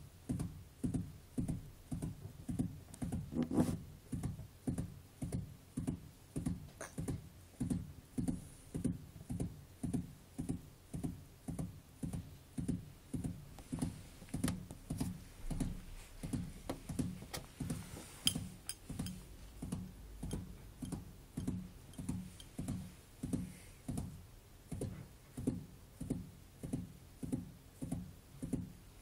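Gerbil drumming its hind feet: a steady run of dull low thumps, about two a second.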